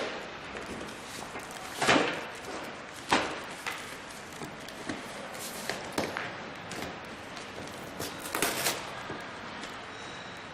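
Irregular knocks and bumps of a solar water heater's frame parts and packaging being handled during unpacking, with the loudest knock about two seconds in and a quick cluster near the end.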